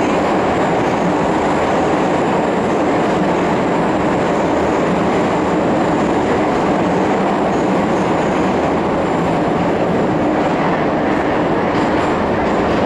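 Metro train running at speed through a tunnel, heard from inside the carriage: a steady rumble of wheels on rail.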